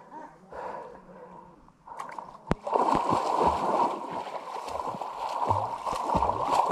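Water splashing and sloshing close to the microphone as someone swims through muddy water. It starts after a quieter opening with a couple of sharp clicks, about three seconds in, and then goes on steadily.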